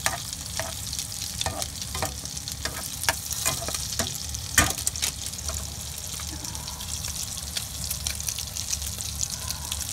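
Tuna omelette frying in oil in a pan, sizzling steadily, with scattered clicks and scrapes of a utensil against the pan; the sharpest knock comes about halfway through.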